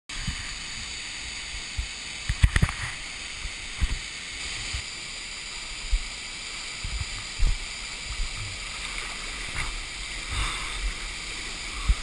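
Steady rush of a waterfall pouring into its plunge pool, heard close up at the water's surface. Irregular dull low thumps and knocks come through it, the loudest about two and a half seconds in.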